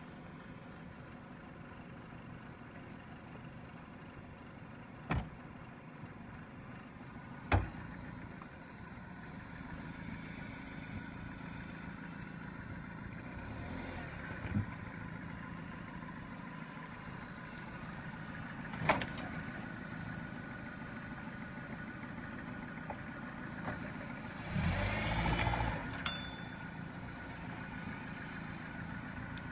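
A 2000 Dodge Neon's four-cylinder engine running low and steady while the car is eased over a log and trail debris. Several sharp knocks come through, and the engine gives a louder surge near the end.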